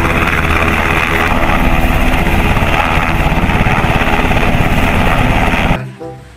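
Military helicopter hovering low, its rotor and turbine running steadily with a fast, even blade chop; the sound cuts off suddenly near the end.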